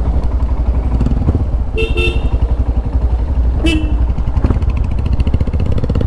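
Motorcycle engine running under way with a steady low exhaust note, and two short vehicle-horn honks, about two seconds in and again near four seconds.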